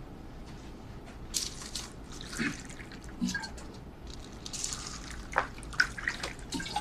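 Tea being poured into cups in several short pours, with a few light clicks.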